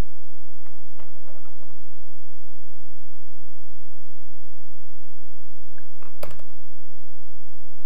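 Steady electrical hum, with a faint rustle about a second in and one sharp clack about six seconds in as a pair of metal scissors is set down on the table.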